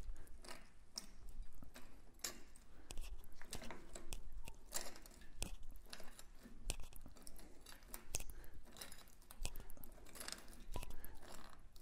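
Bench-mounted sheet-metal shrinker worked by its lever on a pie-cut sheet-metal strip: a string of irregular clicks and crunches as the jaws grip and draw the metal together to tighten the bend.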